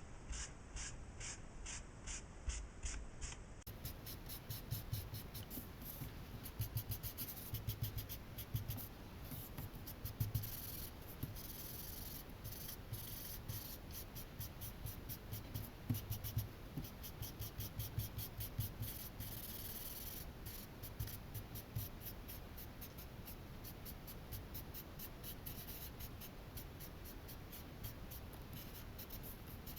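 Charcoal being rubbed onto drawing paper: faint, repeated short back-and-forth strokes on the paper surface.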